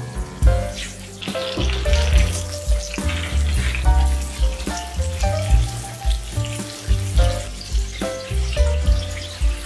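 Butter sizzling and spitting in a hot frying pan as raw chicken thighs are laid into it, under background music with a steady beat.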